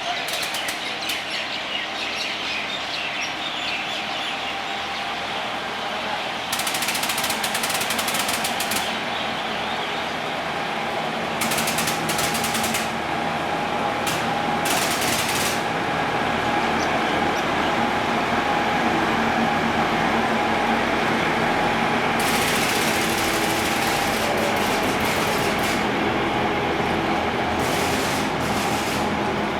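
Narrow-gauge NDM-1A diesel locomotive running slowly, drawing closer as the train comes in to stop. Over it, a chorus of birds chirps in dense spells lasting a few seconds each.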